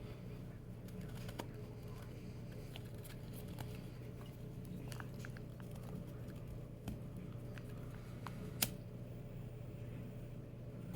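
Faint scattered crackles and clicks from a snowball being held and handled, with one sharper click near the end, over a steady low hum.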